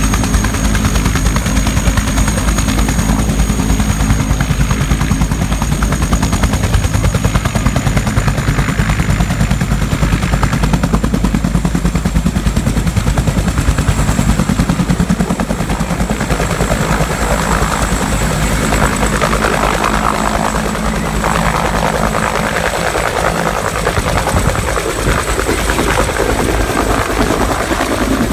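Bell 214B helicopter, a turbine-powered machine with a two-blade main rotor, lifting off and climbing away overhead. Its rotor beats loudly and rapidly throughout, over a steady high whine.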